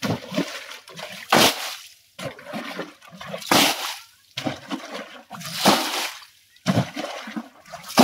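Water being bailed with a hand scoop. Each throw lands in a loud splash, four of them about two seconds apart, with smaller sloshes between.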